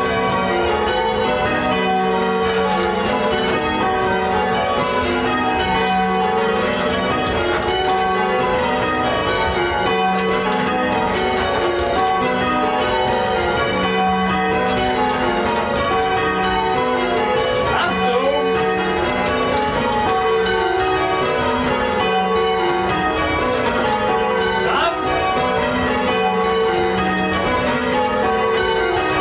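Change ringing on a ring of eight church bells cast by Gillett & Johnston, the bells striking one after another in an unbroken, steady succession.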